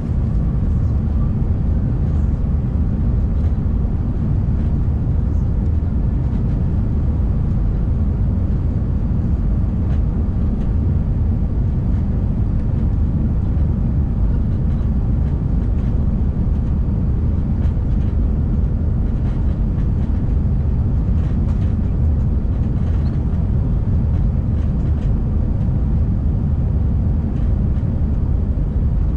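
Steady cabin noise of an Airbus A319 airliner on approach, heard at a window seat: a loud, even low rumble of engines and rushing air.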